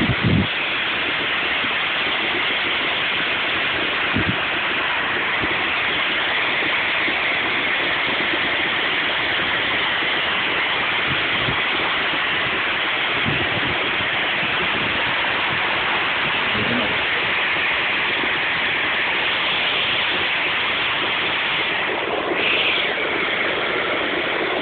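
Floodwater rushing and pouring in a loud, steady roar of water. Near the end another sound briefly swells over it.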